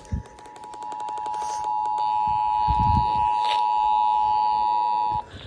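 Emergency Alert System attention signal played over an FM radio: the steady two-tone alarm of 853 and 960 Hz sounding together, growing louder over the first two seconds and cutting off sharply about five seconds in.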